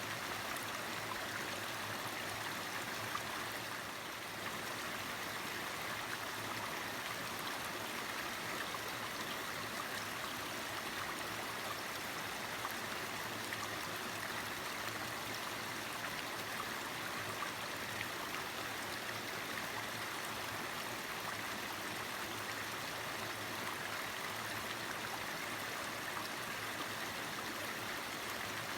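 Mountain valley stream flowing steadily over rocks, a constant rushing and babbling of water.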